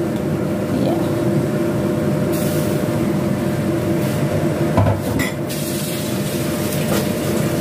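A pot of coconut-milk vegetable stew boiling hard on the stove, a steady rumbling bubble, with a brief knock and click about five seconds in.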